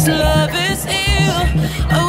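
Music: a wavering melody line over a steady, repeating bass beat.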